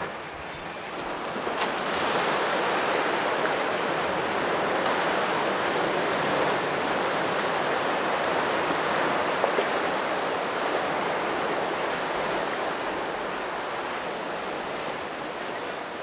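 Sea surf washing over a rocky shore lined with concrete tetrapods, a steady rushing noise that swells about two seconds in and eases a little near the end.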